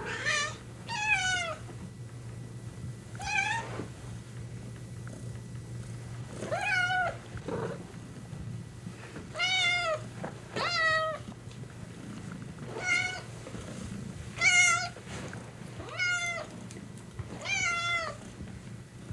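Domestic cat purring steadily, with about ten short, warbling meows spaced one to three seconds apart.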